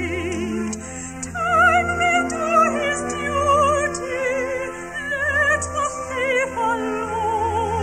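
Operatic soprano singing a slow, lyrical line with wide vibrato, accompanied by an orchestra.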